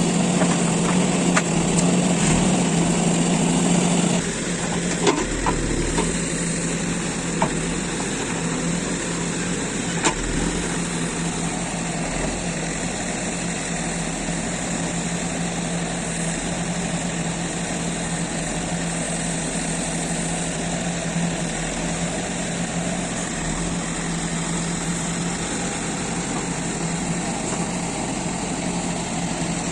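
JCB 3DX backhoe loader's diesel engine running steadily; it drops in level about four seconds in. A few short knocks sound over it in the first third.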